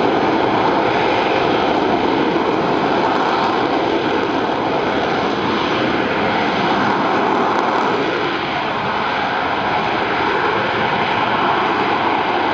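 A Boeing AV-8B Harrier II+'s Rolls-Royce Pegasus vectored-thrust turbofan running at hover thrust: a loud, steady jet roar with faint steady whining tones, easing slightly about eight seconds in.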